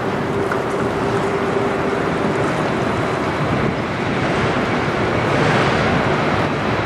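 Steady rushing wind noise on the microphone, with a faint steady hum that fades out about two and a half seconds in.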